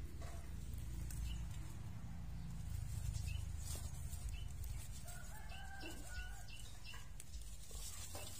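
Animal calls: short high chirps repeating, and one longer pitched call held for about a second a little past the middle, over a steady low rumble.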